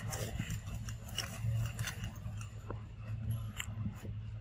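Leaves and twigs of a small sapling rustling and crackling in short, scattered clicks as baby monkeys climb and pull on it, over a steady low hum.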